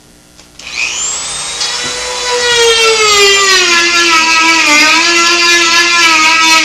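A Dremel rotary tool switches on about a second in, spinning up to a loud, steady high-pitched whine. Midway its pitch sags and wavers as it grinds out the entrance hole in a dried gourd.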